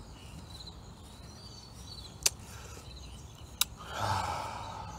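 Faint crickets chirping in short repeated trills over a low background rumble, broken by two sharp clicks about two and three and a half seconds in, with a soft rushing noise near the end.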